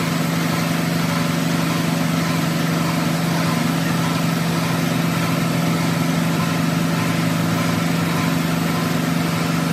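Metal lathe running steadily with a constant hum while its tool bit cuts the face of a spinning steel flange from a truck rear axle.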